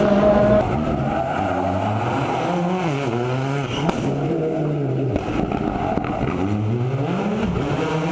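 A 2013 World Rally Car's 1.6-litre turbocharged four-cylinder engine at full rally pace, its revs climbing and falling several times as it shifts gears and lifts off. The pitch drops hard about five seconds in, then climbs steeply again near the end.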